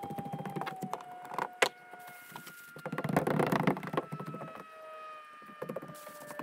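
Footsteps on an OSB roof deck and the rustle of synthetic roof underlayment and its backing paper being handled, with a sharp knock about a second and a half in. Under it runs a faint steady hum that slowly drops in pitch.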